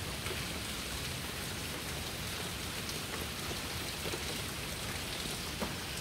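Steady rain falling, an even hiss with a few faint drop ticks.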